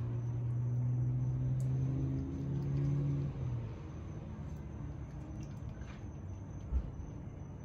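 A low, steady hum that steps up slightly in pitch about two seconds in and fades away by about four seconds, followed by a single soft low thump near the end.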